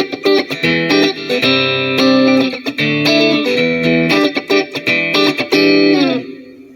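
Boult ST12 Strat-style HSS electric guitar played clean through a Mooer GE150 Pro multi-effects unit with its compressor switched on: strummed chords and picked notes, the last chord ringing out and fading about six seconds in.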